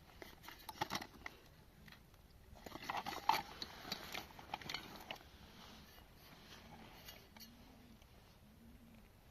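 Small metal clicks, clinks and scrapes as an old mechanical alarm clock is handled and taken apart. They come in a short cluster about a second in and a busier stretch from about three to five seconds in, then fade to faint handling.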